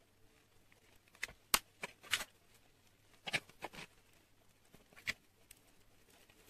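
Scattered light clicks and knocks of a butter dish being opened and its lid and base set down on the counter.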